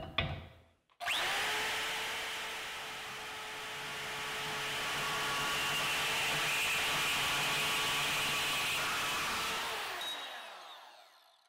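DeWalt DWM120K deep-cut portable bandsaw starting about a second in and cutting through steel angle iron, a steady motor whine with the rasp of the blade in the metal. Near the end it is switched off and winds down to silence.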